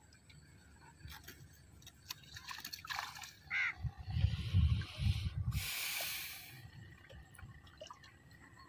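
Water splashing and dripping as hands work in the shallows at a rocky edge, with scattered small clicks, a few low thumps around the middle, and a hissing burst of splash about six seconds in.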